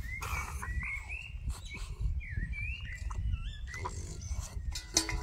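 French bulldog snuffling and mouthing a stainless steel food bowl, with a sharp knock about five seconds in. High chirps run through the first three seconds or so, over a steady low rumble.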